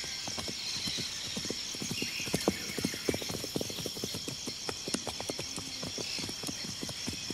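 Horses' hooves clip-clopping on hard ground in an irregular patter of knocks, loudest around the middle. A steady high buzz runs underneath.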